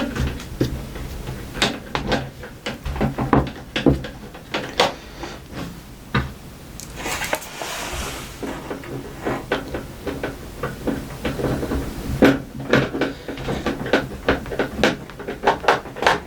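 Screws being driven into a VCR's metal case with a hand screwdriver: a dense run of small clicks, taps and rattles as parts and tools are handled against the cover. A steady low hum runs underneath.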